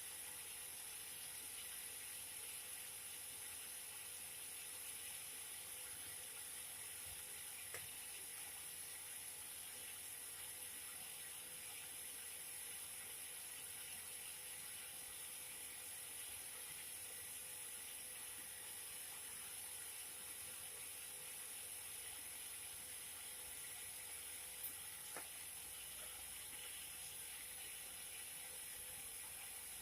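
Cotton candy machine running: a steady, even hiss with a constant high whine, and a few faint ticks now and then.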